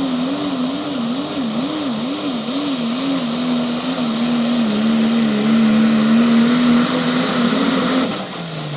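A Super Stock diesel 4x4 pulling truck's engine runs at full power under the load of the pulling sled, with a high turbo whistle over it. In the first few seconds the engine pitch wavers up and down as the truck hops for traction, then it holds steady. Just before the end the driver lets off: the engine pitch drops and the turbo whistle winds down.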